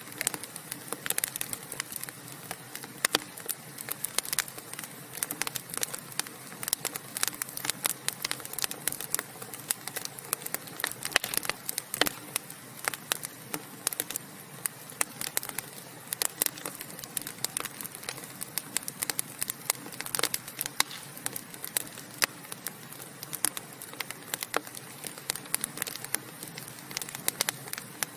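Burning wood logs in a fireplace crackling and popping: a steady run of irregular sharp snaps over a low hiss.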